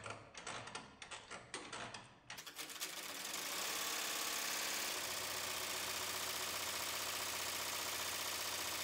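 MakeIT commercial multi-needle embroidery machine stitching. It clicks irregularly for the first two seconds, then picks up speed into a steady, rapid run of stitches.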